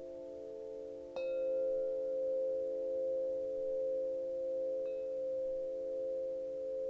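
Wind chimes ringing: several low tones sound together and slowly swell and fade, with a fresh strike about a second in and a fainter one near five seconds.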